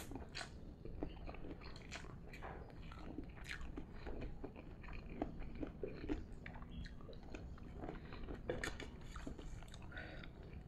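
A person eating instant fried noodles with bitter gourd: close chewing with many small irregular crunches and clicks, over a low steady hum.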